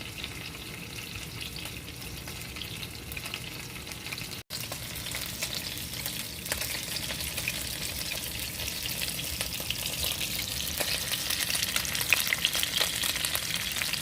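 Pork chops frying in hot oil in a pan: a steady sizzle with dense fine crackling and spattering. It drops out for an instant about four and a half seconds in, then comes back a little louder.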